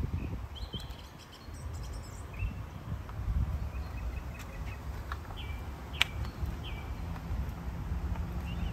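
Birds chirping in short, scattered calls, some rising, over a steady low rumble. One sharp click about six seconds in.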